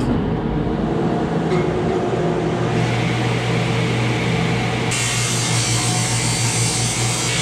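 Table saw running with a steady motor hum; from about five seconds in the blade cuts through oak, adding a loud, high hiss.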